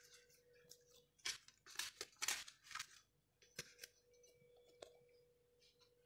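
Thin, dry warqa pastry sheets crackling and rustling as a hand smooths and tucks them into a metal pan, in a few short bursts about one to three seconds in, then a couple of soft clicks. A faint steady hum runs underneath.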